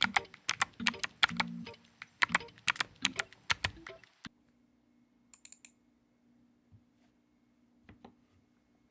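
Typing on a Royal Kludge RK84 mechanical keyboard with lubed, filmed Gateron Black Ink linear switches and thick PBT XDA-profile keycaps: a quick run of keystrokes that stops abruptly about four seconds in. After that only a few faint clicks remain.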